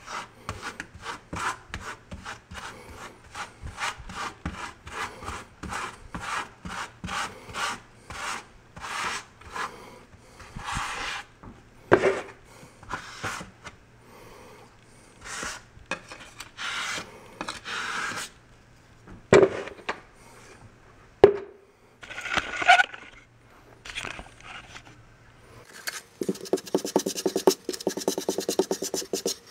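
Grout float and margin trowel scraping grout across travertine backsplash tiles in repeated short strokes, pressing grout into the joints. A few sharp knocks come in the middle, and near the end the strokes turn quick and rapid.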